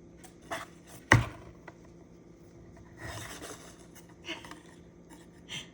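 A few light knocks and taps, the loudest about a second in, with a short rustle around three seconds in.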